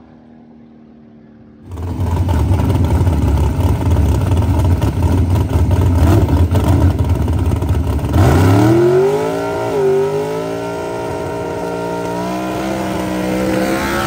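Drag race car engine, loud and rough for several seconds, then climbing in pitch as the car accelerates. The note dips once at a gear change about ten seconds in and climbs again.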